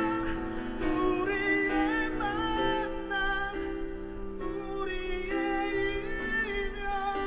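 Live band music: a male vocalist sings a slow ballad melody with long, wavering held notes over keyboard chords.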